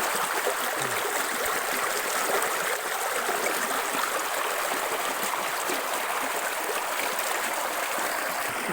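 Stream water running steadily over rocks, a constant rushing hiss.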